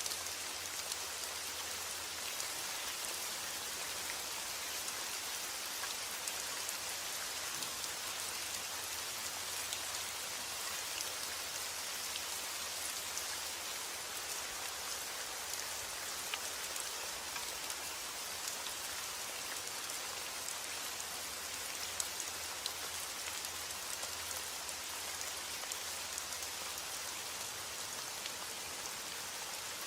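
Steady rain falling, an even hiss of drops with faint scattered individual drop ticks.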